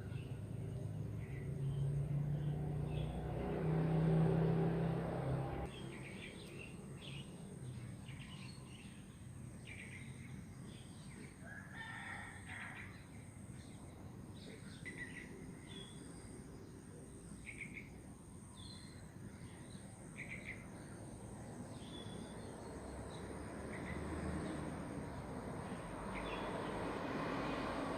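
Rural morning birdsong: many short, scattered chirps from wild birds, with a louder, drawn-out rooster crow in the first few seconds, over a faint steady background.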